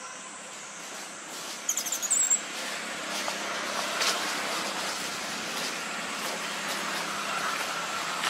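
A short burst of rapid, high chirping calls about two seconds in, over a steady rushing background hum that rises after it.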